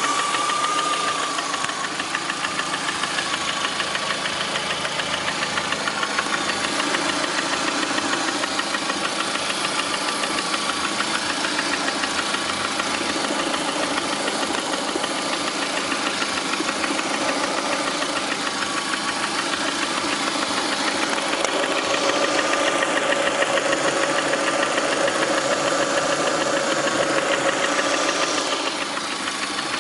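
Lada Priora's 21126 1.6-litre sixteen-valve four-cylinder engine running with a rapid, steady knock. It gets a little louder for several seconds in the last third.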